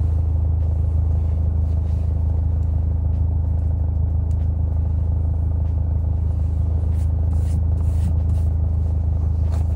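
Steady low rumble of a car engine idling, heard from inside the car's cabin, with a few faint light clicks in the second half.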